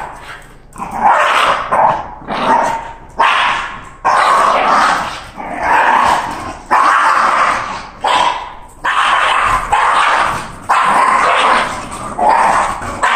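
Two Shiba Inus play-fighting, with a run of loud, harsh barks and growls about once a second, each one starting sharply and fading.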